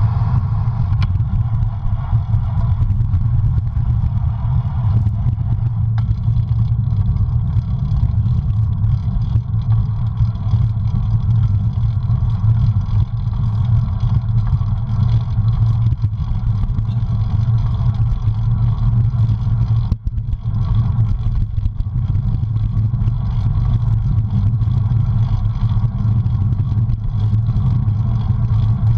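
Wind buffeting the microphone of a camera on a moving road bike: a steady low rumble, with tyre and road noise beneath it.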